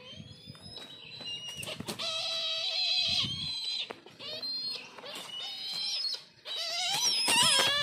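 Brahminy kites calling: repeated high, wavering cries, with several loud overlapping cries near the end.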